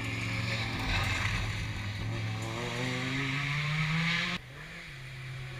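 Rally car engine accelerating, its pitch climbing steadily for about three seconds, then dropping off abruptly about four seconds in to a quieter, lower, steady engine note.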